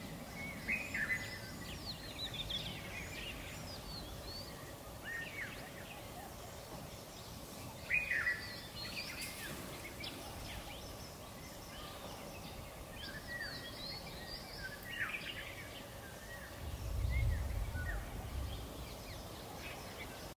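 Wild birds chirping and calling now and then: short, quick notes and sweeps over a steady outdoor background hiss. A low rumble rises briefly about seventeen seconds in.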